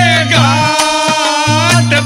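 Live Haryanvi bhajan music: a dholak drum beats a steady rhythm under hand claps, with a voice singing a wavering melody over it.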